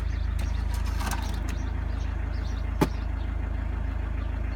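Car engine idling with a steady low hum. There are a few light clicks about a second in and one sharp click or knock near three seconds.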